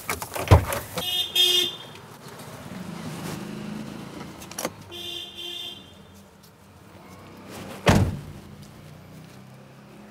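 Toyota Innova's car door clicking open, then slammed shut with a heavy thump about eight seconds in, while the engine idles. Two short beeps sound in between.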